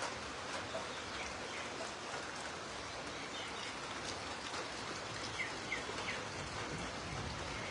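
Steady rain falling, an even hiss of drops. A few short bird chirps come through a little past halfway.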